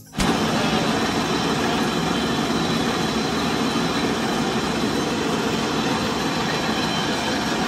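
Jute mill machinery running: a loud, steady, dense mechanical din.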